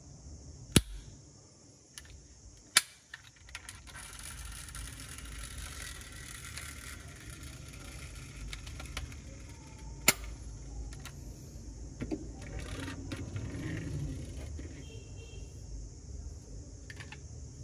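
Handling of a diecast Tesla Cybertruck model: a few sharp clicks of its metal-and-plastic parts being snapped and pressed, with soft rubbing and fumbling in between.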